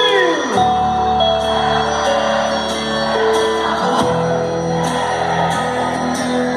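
Instrumental passage of a live forró song played loud through a car audio system with two Tornado 5000 woofers, 8-inch Eros midrange speakers and Eros horn tweeters. A held note slides down at the start, then sustained keyboard-like chords play over a steady bass line.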